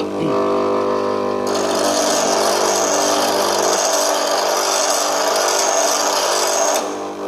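Bench grinder running with a steady hum; from about one and a half seconds in until shortly before the end, an HSS lathe tool bit is pressed against the grinding wheel, adding a grinding hiss.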